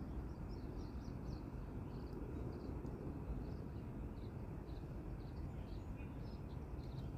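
Small birds chirping, a string of short high calls coming irregularly a few times a second, over a low steady outdoor rumble.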